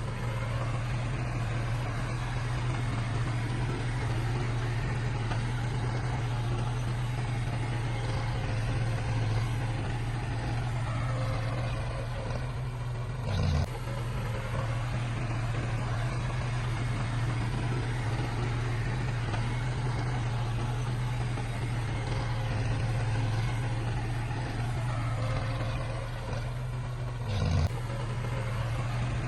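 Heavy diesel earthmoving machinery, a bulldozer or dump truck, running with a steady low engine drone, with a brief louder surge twice, near the middle and near the end.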